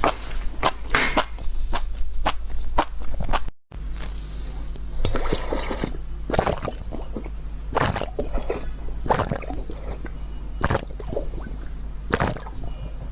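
Close-miked eating: crisp crunching bites and chewing of food, several crackles a second at first and then slower, about one a second. There is a brief dropout to silence a few seconds in, and a steady low hum underneath.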